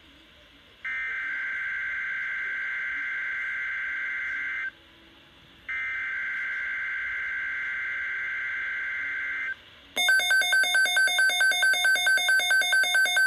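Emergency Alert System SAME header: two bursts of buzzing, screeching digital data tones, each about four seconds long with a second's gap between them. These are the last two of the header's three repeats. About ten seconds in, a louder electronic alert tone starts, pulsing about four times a second.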